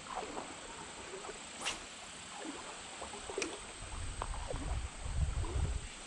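Wading through a shallow creek: water swishing and splashing softly around the legs, heavier in the last couple of seconds, with a few faint short chirps.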